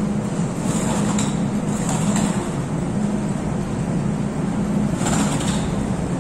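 MTR Island Line M-Train standing at the platform, its onboard equipment giving a steady low hum, with a short hiss about five seconds in.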